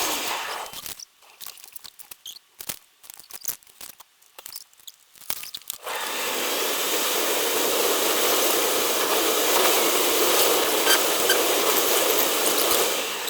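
Steady road and wind noise of a car driving, which cuts out from about a second in for nearly five seconds, leaving only scattered crackles, then comes back.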